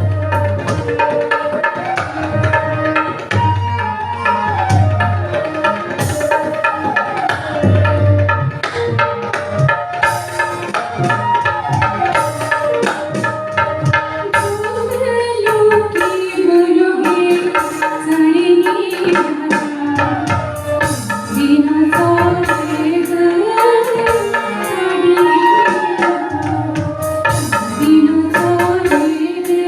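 Pahadi nati folk music: a wavering melody line over a steady hand-drum rhythm.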